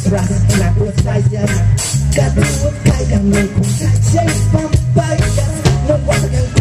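Live reggae band playing an instrumental passage: a steady bass guitar line under the drum kit's regular cymbal and drum strokes, with electric guitar and keyboard on top.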